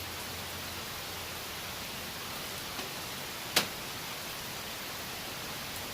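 Steady background hiss, with one sharp click about three and a half seconds in.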